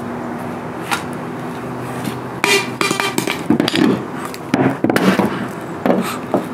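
Knocks and metallic clinks as a wooden mounting board's protruding bolts are worked into holes in a car hood, the bolts tapping the sheet metal. The clink about two and a half seconds in rings briefly. A steady low hum runs underneath.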